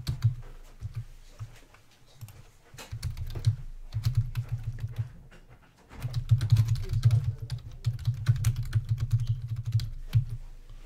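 Typing on a computer keyboard: quick runs of key clicks in several bursts, with short pauses between them and the longest, densest run in the second half.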